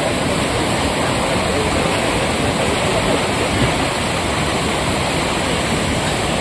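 Steady rush of fast-flowing, muddy floodwater: a stream overflowing its banks after heavy rain.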